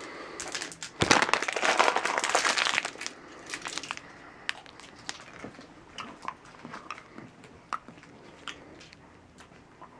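Plastic Warheads candy packaging crinkling as a sour candy is handled: a loud stretch of crinkling lasting about two seconds, starting about a second in, then a few quieter crinkles and small clicks.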